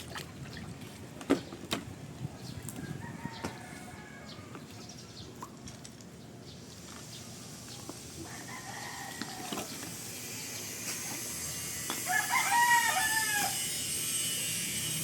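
A rooster crowing, a pitched call loudest about twelve seconds in, with a shorter call a few seconds before it. A few sharp knocks sound in the first seconds, and a steady high hiss rises in the second half.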